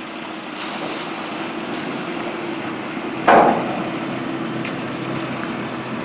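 Dump truck's diesel engine running steadily with the dump bed raised over a fresh pile of crusher rock, with a single loud bang about three seconds in.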